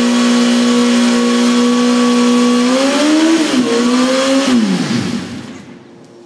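2004 Kawasaki ZX-10R's inline-four engine held at high revs in a rear-tyre burnout. The revs waver up and down near the middle, then fall away about five seconds in and the sound dies down.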